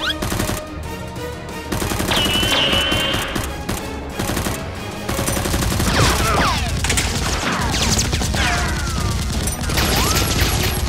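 Rapid gunfire sound effects in bursts, dubbed over the blaster shooting, with action background music underneath.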